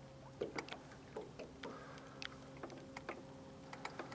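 Faint irregular taps and ticks of water lapping against a small aluminum fishing boat's hull, over a steady low hum.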